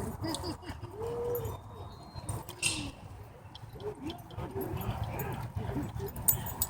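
Dogs at play making short whines and grumbles that rise and fall in pitch, one after another, with scattered sharp clicks and taps.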